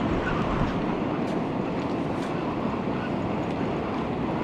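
Wind buffeting the microphone over the steady wash of sea waves, a low uneven rumble with a hiss of surf.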